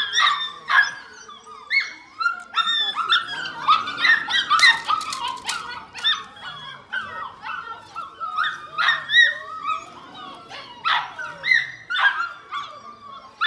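Seven-week-old Belgian Malinois puppy giving a rapid run of high-pitched yips and little barks as it bites and tugs on a rag toy. There are a few sharp clicks near the middle.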